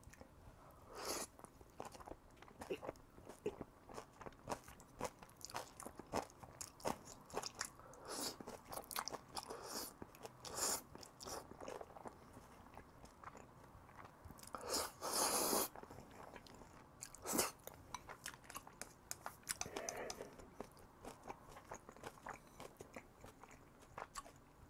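Close-miked eating of black-bean-sauce instant noodles: wet chewing and mouth smacks with many small clicks, and noodles slurped in. The loudest is a slurp lasting about a second, about fifteen seconds in.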